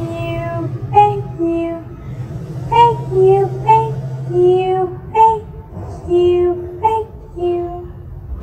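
A high-pitched voice chanting 'bet you' over and over in a sing-song, each time a short note dropping to a longer lower one, about six or seven times, over a steady low hum.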